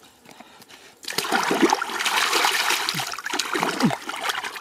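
Muddy water splashing and sloshing as a plastic basket-sieve is scooped through a shallow mud puddle and lifted, water draining out through its holes. It starts about a second in after a quiet moment and runs on with uneven surges.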